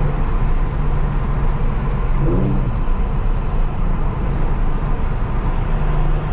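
Porsche 911 (996) flat-six engine breathing through aftermarket Fister D mufflers, running at a steady highway cruise, heard from inside the cabin with a steady low exhaust tone over road noise.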